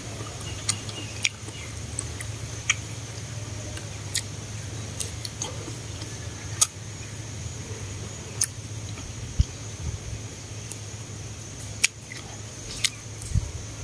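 Close-up mukbang chewing of fried tofu dipped in shrimp paste: scattered sharp wet mouth clicks and smacks over a steady low hum.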